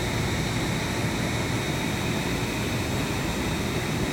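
Electric heat gun running steadily, its blower giving an even rushing hiss with a faint high whine, as it shrinks heat-shrink tubing onto a wire.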